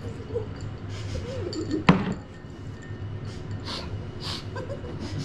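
Stifled laughter from young men holding water in their mouths: muffled, wavering hums and breathy snorts through the nose. One sharp knock about two seconds in is the loudest sound.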